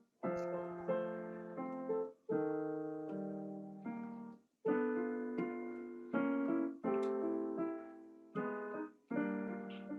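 Piano played in struck chords and short phrases, each chord fading before the next is played; the sound drops out briefly twice between phrases.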